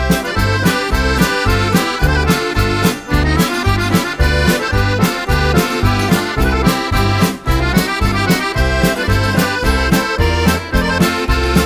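Solo accordion playing a lively polka, with a steady oom-pah beat from the bass buttons under the melody.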